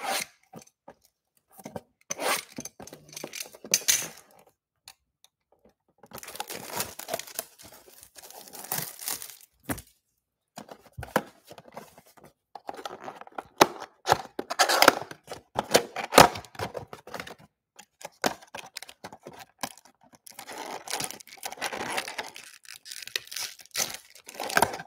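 Plastic shrink wrap on a cardboard trading-card box being unwrapped. It starts with scattered sharp clicks and scrapes as a box cutter slits the wrap. Then come repeated bursts of plastic tearing and crinkling as the wrap is pulled off. Near the end there is cardboard rustling as the box flap is opened.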